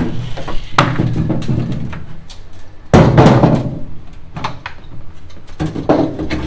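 Black diamond-plate metal toolbox being handled: a series of knocks and clunks, the loudest about three seconds in as it is laid down on the concrete floor, then its latch being worked and the lid swung open.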